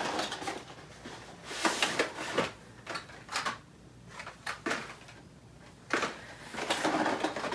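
Cardboard and plastic blister-carded Hot Wheels cars being handled in a box: a string of short clicks, scrapes and rustles with quieter gaps between them.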